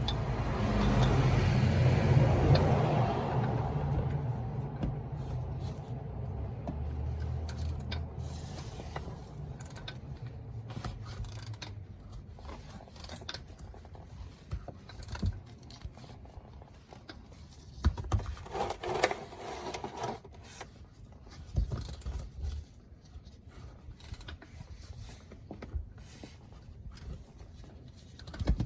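A vehicle rumble fades away gradually over the first several seconds, then scattered clicks, knocks and scrapes of tools and parts being handled follow.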